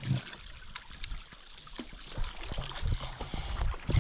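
Canoe paddling: water trickling and splashing around the paddles and hull, with scattered light knocks.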